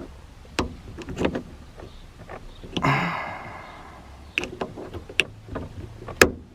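Handling noise as a small cap is fitted onto a newly installed car seatbelt: scattered sharp clicks and knocks, the loudest near the end, with a short rustle about three seconds in.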